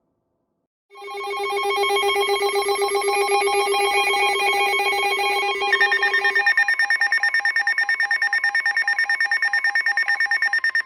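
Emergency alert tone sounding before a severe thunderstorm warning: a loud, rapidly pulsing electronic alarm that starts about a second in and runs for about ten seconds, shifting to a higher pitch about halfway through.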